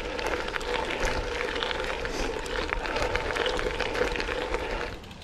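Gravel bike tyres rolling over freshly laid, well-packed gravel: a steady crunching hiss dotted with many small stone clicks. It drops away abruptly near the end.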